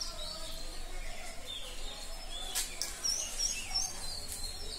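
Small birds chirping in the background, a scatter of short quick chirps over a low steady hum, with a brief sharp click about halfway through.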